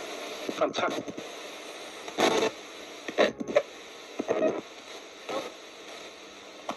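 Radio spirit box sweeping through stations: a steady static hiss broken by short snatches of broadcast sound, each a fraction of a second, the loudest about two seconds in.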